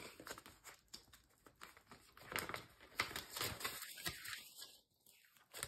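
Faint handling noise of paper cash and envelopes: soft rustling with scattered light clicks and taps as bills are counted and tucked into an envelope.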